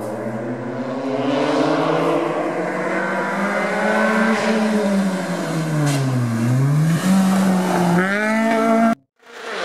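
Citroën DS3 rally car engine at racing speed, revs climbing, then falling sharply about six seconds in and pulling up again, with a quick rev flick near the end. The sound cuts off suddenly just before the end.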